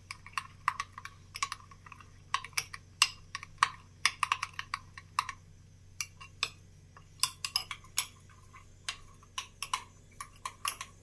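Steel spoon beating raw egg for an omelette in a small glass bowl, clicking against the glass in quick, irregular taps, several a second with short pauses.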